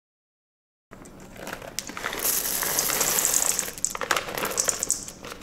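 Silent for about the first second, then a plastic bag of chocolate chips crinkling as it is handled and emptied, with the chips pattering and clicking into a stainless steel mixing bowl. The crinkling is loudest in the middle, and scattered clicks follow.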